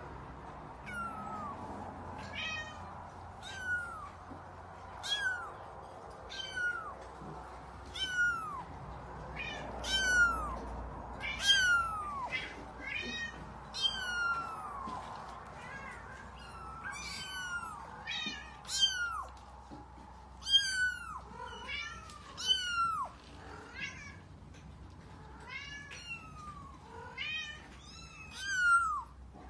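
Five-week-old F5 Savannah kitten meowing over and over, short high-pitched calls that each fall in pitch, about one a second.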